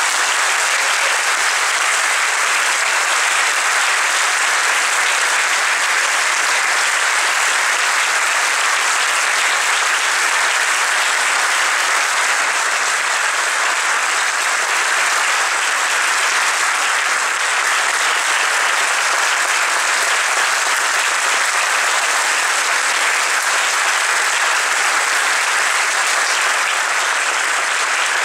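A large standing audience applauding, dense and steady clapping that keeps an even level throughout.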